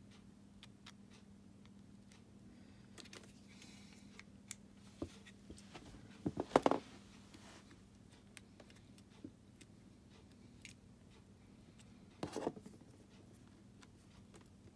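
Small plastic clicks and scraping as the inner module of a Fiat 500 flip key fob is pried and worked out of its casing by hand. A cluster of sharper, louder clicks comes about halfway through and another near the end.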